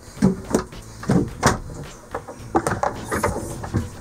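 Companionway steps being lifted and handled, a series of irregular knocks and bumps.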